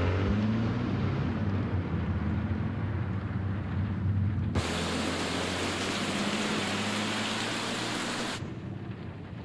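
Car driving in rain, heard from inside: a steady hiss of rain over a low engine hum. About four and a half seconds in, a louder, brighter hiss cuts in abruptly, and it cuts off again near the end.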